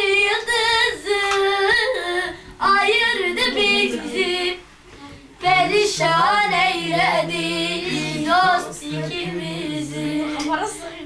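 A child singing a Turkish song unaccompanied, in long held phrases with a wavering pitch and a short break about four and a half seconds in.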